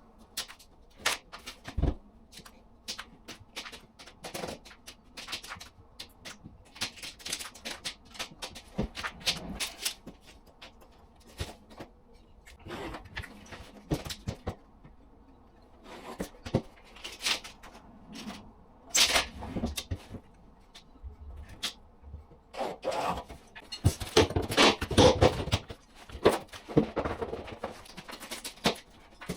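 Irregular knocks, scrapes and clatters of hand demolition work: damaged plasterboard being cut, broken and pulled from the wall, busiest near the end.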